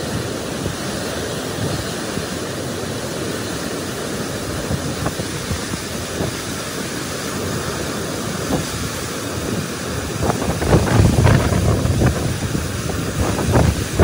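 Released water rushing steadily out of a dam's open spillway gates. Wind buffets the microphone, heavier in the last few seconds.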